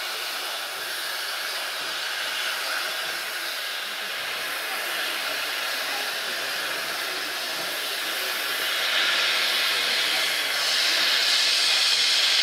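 Steam locomotive 354.1217 venting steam with a steady hiss that gets louder in two steps over the last few seconds.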